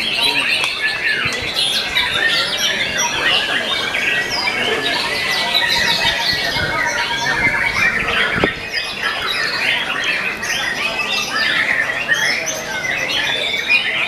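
Many caged white-rumped shamas singing at once: a dense, unbroken tangle of overlapping whistled phrases, trills and harsh notes.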